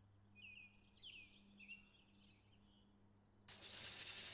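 Faint bird chirps and twitters for the first couple of seconds. Then, about three and a half seconds in, loud hand sanding starts: sandpaper rubbed over the filled and primed patch on a car hood.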